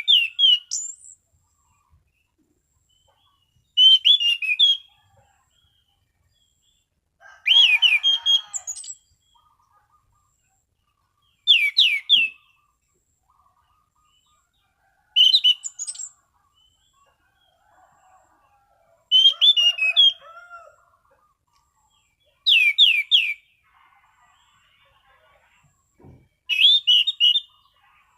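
An orange-banded thrush (anis cendana) singing short, clear whistled phrases in the ngeplong style, eight in all, each a quick run of notes about a second long, repeated every three to four seconds with pauses between.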